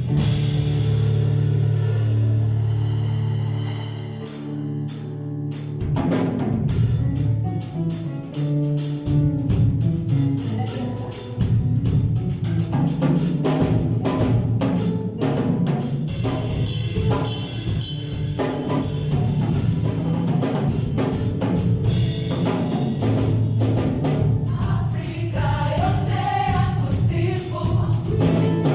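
Live gospel worship band rehearsing: sustained low chords open, then a drum kit comes in about six seconds in and keeps a steady beat under singing, with a choir of voices carrying the melody near the end.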